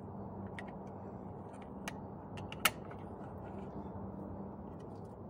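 Scattered clicks and small metallic knocks from a swivel caster wheel being handled and worked with a hand tool, with one sharp click about two and a half seconds in. A steady low hum runs underneath.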